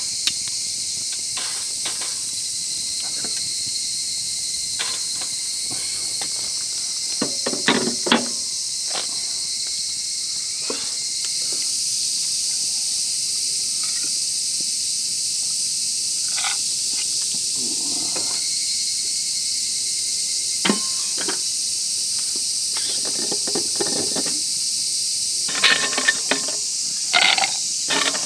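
A steady high-pitched insect chorus droning, with a wood fire crackling and occasional knocks over it, a cluster of louder cracks about eight seconds in and again near the end.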